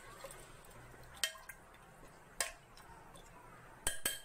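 A metal spoon clinking against a pressure cooker as the chicken, water and spices inside are stirred: single sharp clinks about a second in and near the middle, then two close together near the end.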